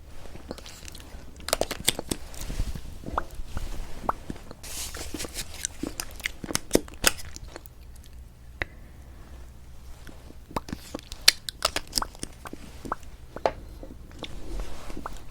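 Close-miked lipstick application: the stick rubbing over the lips, with many sharp, irregular lip-smacking clicks.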